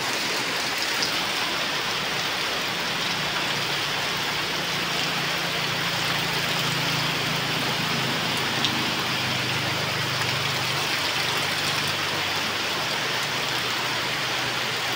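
Heavy rain falling steadily and splashing on the ground and puddles, with a low steady hum underneath for much of it.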